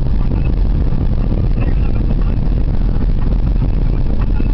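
Steady low rumble of a car driving, heard from inside the cabin: engine and tyre noise on a wet road.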